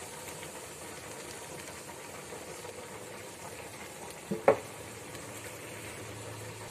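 Masala-coated prawns frying in oil in a kadai on low heat: a soft, steady sizzle, with one sharp knock about four and a half seconds in.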